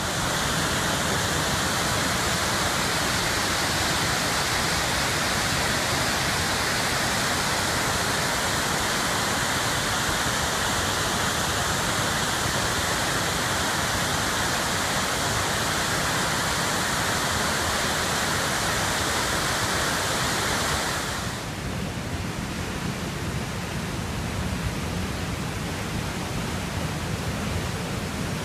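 Flash-flood water pouring down sandstone cliffs as waterfalls, a steady loud rush. About twenty seconds in, it changes to a lower, softer rush of muddy floodwater running through a rock channel.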